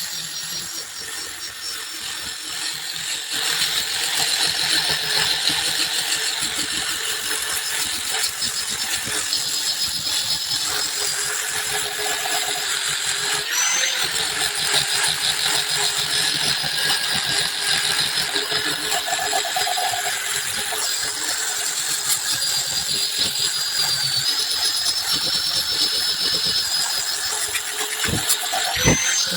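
Handheld electric power tool running steadily with a high whine, its pitch dipping briefly a couple of times as it works.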